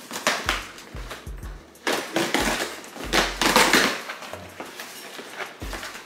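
A cardboard shipping box being opened by hand: packing tape ripped and flaps pulled apart, with scraping and tearing noises, the longest and loudest about two seconds in and again about three seconds in. Background music with a low bass line plays underneath.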